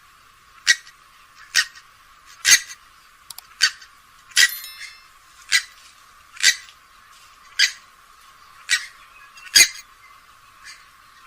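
Grey-headed swamphen giving a series of short, sharp calls, about one a second.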